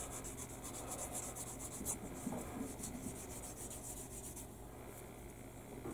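Small hobby file rasping in quick short strokes across a plastic model-kit part, smoothing off the sprue attachment points. The strokes come fast for about two seconds, then turn fainter and more spaced out.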